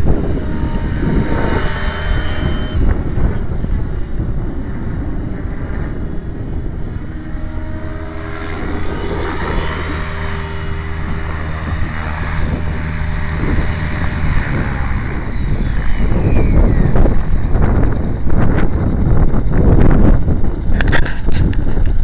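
Align T-Rex 600E electric RC helicopter's motor and rotor whine under heavy wind buffeting on the microphone. About fourteen seconds in, a high whine falls steadily in pitch as the rotor slows down after landing, with a few sharp clicks near the end.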